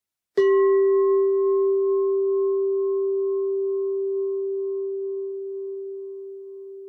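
Singing bowl struck once with a mallet, its low tone ringing on and slowly fading, with a fainter higher overtone that wavers as it dies away.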